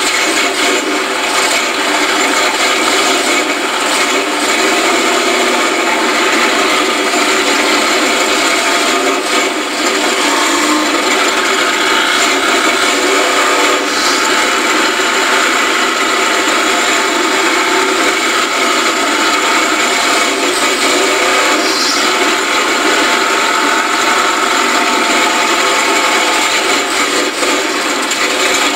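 4x4 mud truck's engine running hard, loud and steady, heard from inside the cab while driving through mud.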